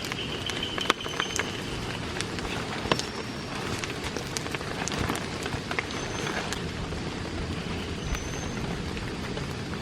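Heavy rain falling steadily, with scattered sharper drop hits and a few short, high chirps heard faintly over it.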